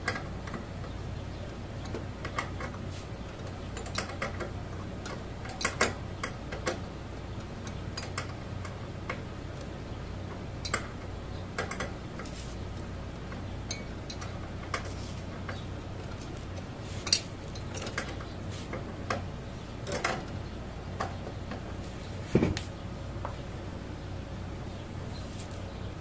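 Irregular small metallic clicks and clinks as hands work at a mini fridge compressor's wiring and fittings, over a steady low hum. A few louder knocks stand out near the middle and toward the end.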